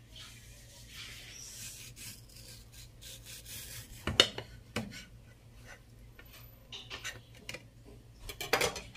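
A kitchen knife slicing through a ripe mango with faint scraping, then the blade knocks sharply against a plastic bowl about four seconds in and again a moment later, with a few more knocks and clatter near the end.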